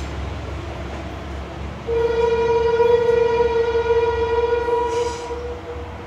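Train horn sounding one long steady note, starting about two seconds in and holding for about three and a half seconds, over a steady low rumble of the train running.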